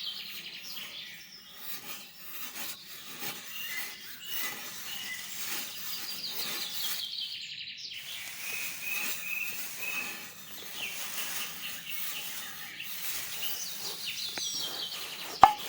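Birds chirping, with repeated falling trills and short chirps, over outdoor background noise with scattered soft clicks and scraping.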